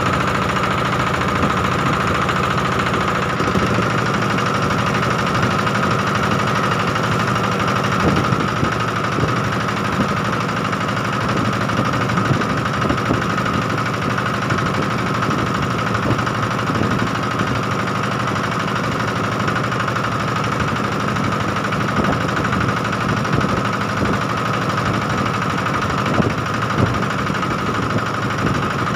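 Engine of a small wooden fishing boat running steadily under way, a constant unchanging drone.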